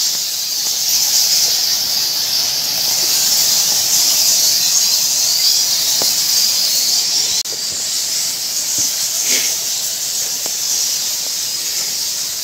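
A large colony of bats squeaking, a dense, steady, high-pitched chatter.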